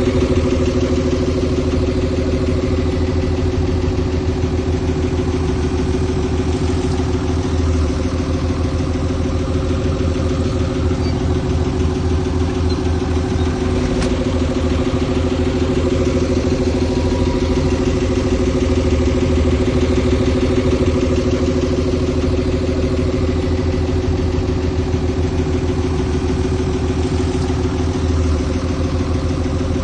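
Heavy diesel engine of an earthmoving machine running steadily at constant speed, low and even, with no revving.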